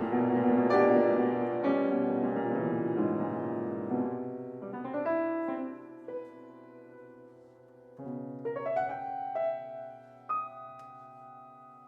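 Solo piano playing a classical piece: loud, full chords that die away over several seconds, then softer sustained chords with a single high note ringing over them near the end.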